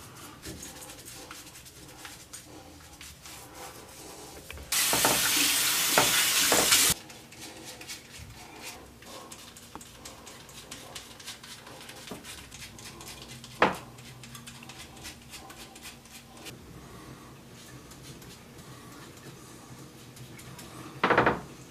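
Razor scraping through shaving cream and beard stubble in short, crackly strokes. A tap runs for about two seconds early in the stretch, and a single sharp knock comes about two-thirds of the way through.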